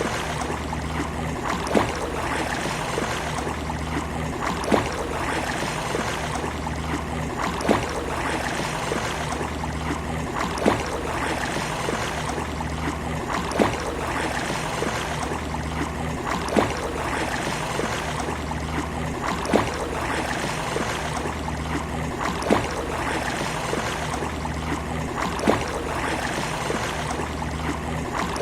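Sea waves washing on a beach as a steady rush of water, with a short sharp splash or click about every three seconds in an exactly repeating pattern.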